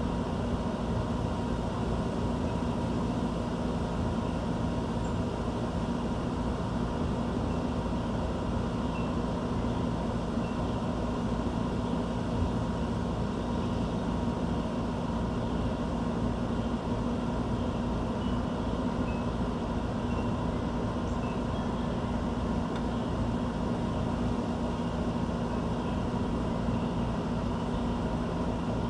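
Steady mechanical hum with a low drone and a faint higher tone, unchanging throughout, with a few faint short high chirps scattered over it.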